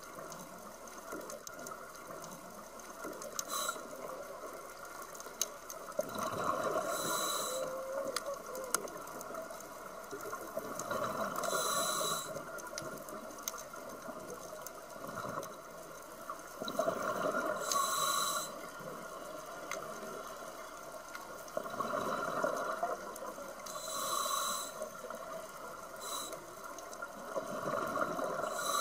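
A scuba diver breathing through a regulator, recorded underwater: a rush of exhaled bubbles comes about every five to six seconds over a steady hiss.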